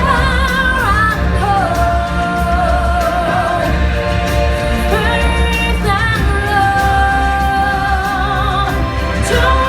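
Live stage-musical performance: singers holding long notes with vibrato over a steady, heavy bass beat.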